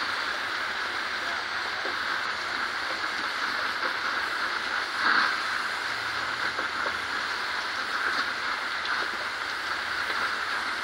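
Steady hiss of a gas welding torch flame held on a radiator seam while filler rod is fed in, swelling briefly louder about halfway through.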